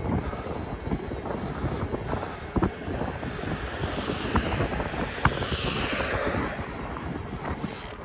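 Wind buffeting the microphone during a bicycle ride, a continuous low rumble with scattered sharp knocks and rattles. A hiss swells about halfway through and fades again.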